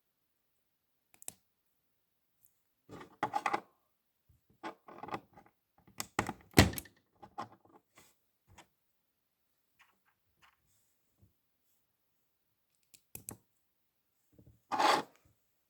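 Plastic Lego pieces being handled and pressed together: scattered clicks and short bursts of rubbing and knocking, the loudest about six seconds in, with a quiet stretch before a last burst near the end.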